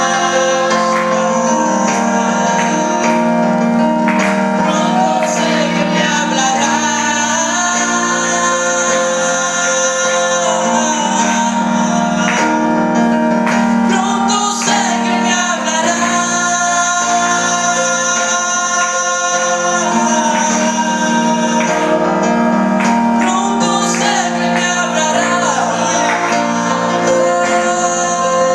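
A Christian worship song sung over steady instrumental backing.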